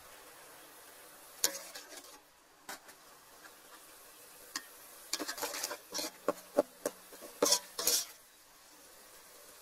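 Metal ladle clinking and scraping against a metal cooking pot while stirring a simmering chili and lemongrass broth. A few separate knocks come first, then a quick run of clinks and scrapes in the second half, over a faint simmering hiss.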